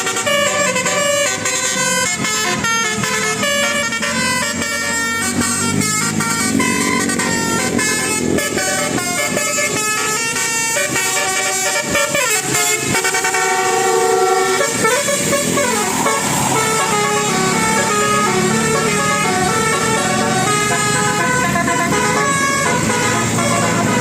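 Bus 'telolet' horn of the Basuri type, its set of electric trumpets playing a melody of stepped notes that changes pitch every fraction of a second. It plays on throughout, with a few sliding notes about halfway through.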